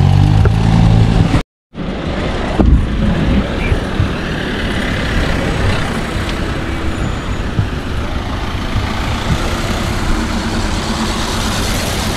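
Car engines running close by, broken off by a brief dropout about a second and a half in, then steady street traffic noise with a single knock shortly after.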